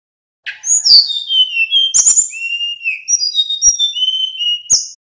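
Male sikatan bambu (bamboo flycatcher) singing a quick run of clear whistled notes that slide up and down, with a few sharp clicks among them. The song begins about half a second in and stops abruptly near the end.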